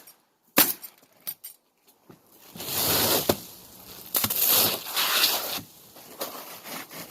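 Asphalt roofing shingles being handled and slid into place, a gritty scraping and rustling in two longer stretches, after a few sharp clicks in the first couple of seconds.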